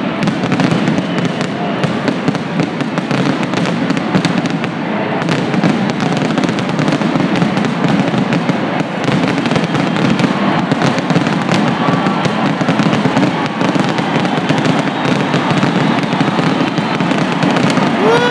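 Aerial fireworks shells bursting many at once, a continuous rapid barrage of bangs and crackle with no pauses.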